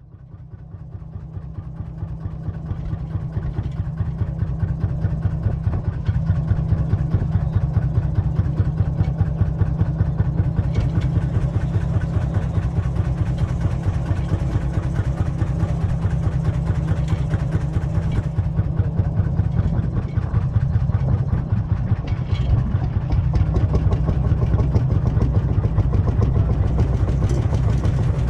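Lanz Bulldog tractor's single-cylinder two-stroke hot-bulb engine running at idle with a steady, even beat, fading in over the first few seconds.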